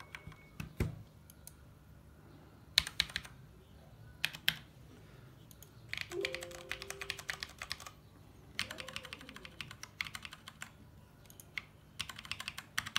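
Mechanical keyboard keys with Cherry MX Brown switches being pressed in groups, a few separate clicks at first, then quicker runs of many presses near the middle and end, as the function-key combinations cycle the backlight modes.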